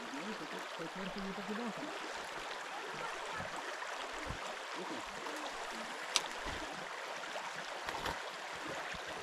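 Mountain river water rushing steadily, with a single sharp click about six seconds in.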